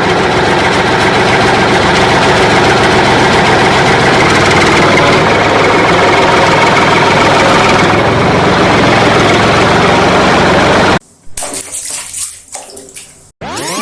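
A steady, loud motor-like drone mixed with a hiss, which cuts off suddenly about eleven seconds in. A quieter, uneven noise follows.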